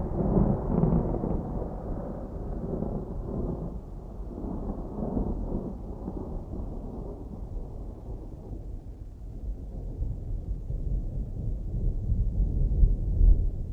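Distant thunder rumbling low and deep: a long roll that slowly fades over the first half, then builds into another rumble near the end.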